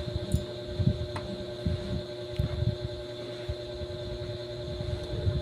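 Steady electrical hum from a powered-on audio amplifier on the bench, with irregular soft low thumps of handling and a couple of faint clicks.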